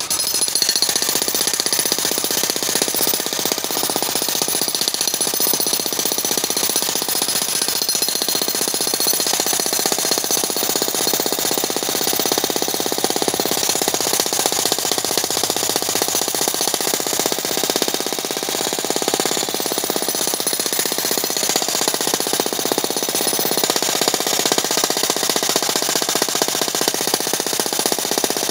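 Corded electric demolition hammer (breaker) running continuously, its chisel bit pounding into rock in a rapid, steady hammering.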